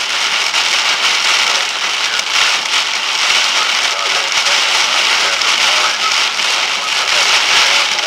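Wind-driven rain pelting the vehicle in 50–60 mph winds, heard from inside the cab as a steady loud hiss with a fine crackling patter.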